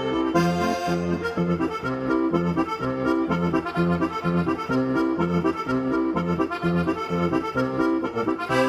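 Accordion music: a lively tune over a steady bass-and-chord accompaniment.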